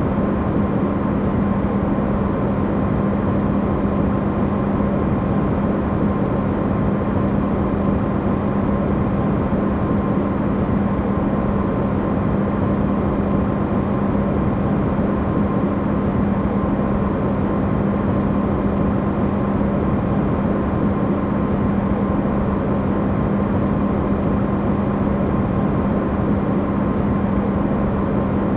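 Amplified recording of an Electrolux refrigerator running: a steady low hum with a constant tone, over an even rushing noise that does not change.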